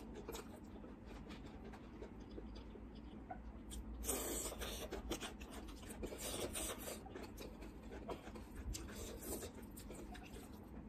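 Fingers mixing and scooping rice and gravy on a metal plate, rubbing and scraping against the plate with small clicks, louder in a few stretches about four and six seconds in.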